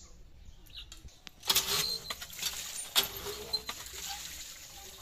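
Hand pump being worked, water gushing and splashing into a plastic basket, starting suddenly about a second and a half in. There are a couple of sharp metallic knocks from the pump.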